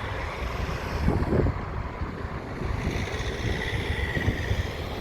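Airbus A350's jet engines at takeoff thrust as the airliner climbs away after rotation: a steady, dense roar with deep rumble, with wind buffeting the microphone.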